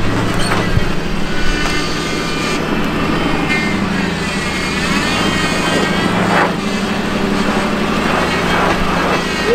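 Ford F-150 pickup's engine running steadily as the truck crawls up a rocky off-road trail.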